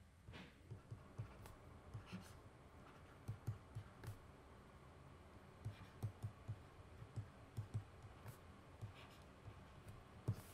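Faint, irregular tapping and clicking of a stylus on a tablet while handwriting, a few small taps a second.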